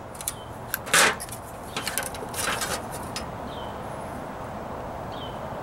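A few sharp metal clicks and knocks in the first couple of seconds, the loudest about a second in, as clamp, hammer and sheet-metal stock are handled on a steel cart; then a steady background hiss with two faint bird chirps.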